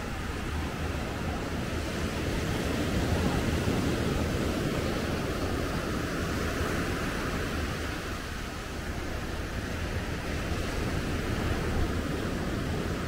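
Sea waves washing onto a beach: a steady rushing surf that swells louder a few seconds in.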